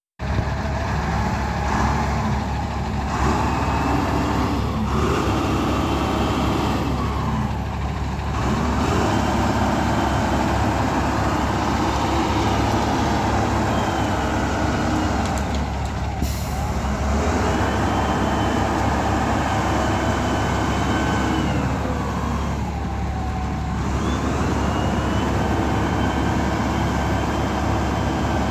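Case wheel loader's diesel engine working under load, its speed rising and falling several times as the machine pushes into and lifts a bucket of brush and debris.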